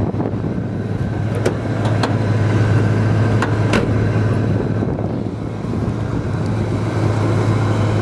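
1972 Chevrolet C10's 350 V8 idling steadily, with a few short clicks.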